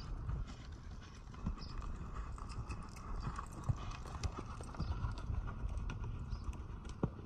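A horse's hooves beating on a soft dirt arena at a trot, an uneven run of dull thuds with occasional sharper clicks. The horse passes close by about midway.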